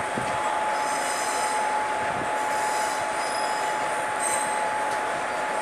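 Passenger train running over curving yard tracks, with a continuous rumble of wheels on rail and a steady whine. High-pitched wheel squeal comes and goes about three times as the wheels grind on the curves.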